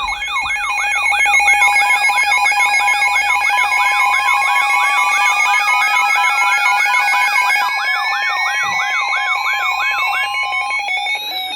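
Layered electronic alarm sirens that start suddenly and loud: a warbling tone cycling about twice a second over steady tones, with a slow wail rising in pitch through most of it.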